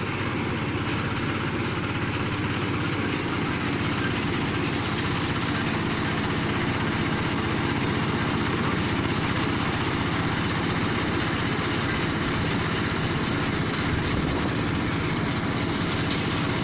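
ZAAGA BN 120 AT mini rice combine harvester running steadily as it works through standing rice, its engine and machinery keeping an even, unbroken drone.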